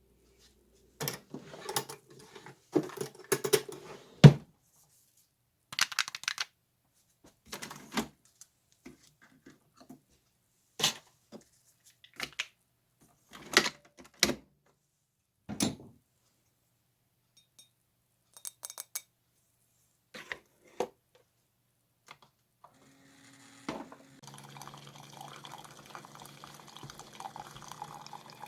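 Scattered clinks and knocks of dishes and kitchenware being handled, each one short and sharp with quiet gaps between. A steady hum starts near the end.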